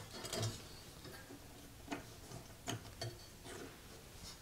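A handful of faint, scattered clicks and taps of small parts being handled at the lower blade guide of a 1930s Craftsman bandsaw, as the guide dowel is worked out of the cast-iron guide.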